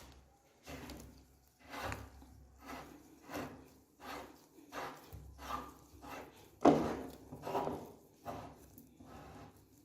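Meat grinder crushing hard fruity candy: a string of uneven crunching, scraping strokes, a little more than one a second, with the loudest about two-thirds of the way through.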